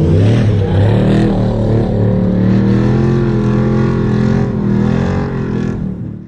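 Off-road race vehicle engine running hard, its pitch rising and falling as the throttle changes, dying away suddenly near the end.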